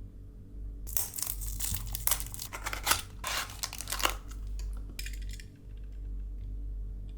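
Toy-car packaging being opened by hand, crinkling and tearing for about three seconds from about a second in, with a shorter, fainter rustle a second later.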